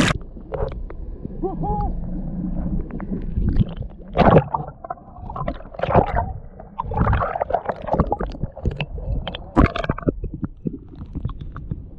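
Muffled underwater sound as the camera goes below the surface: gurgling and bubbling water with irregular knocks and clicks, the high end cut off.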